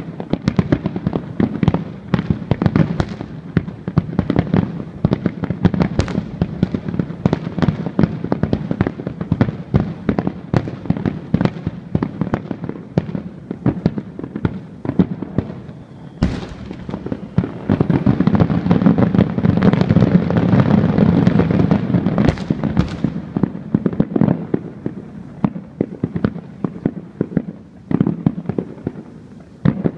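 Fireworks display: a dense, rapid run of bangs and crackles from aerial shells. A single sharp boom comes about 16 seconds in, followed by a louder, thicker stretch of crackling for several seconds.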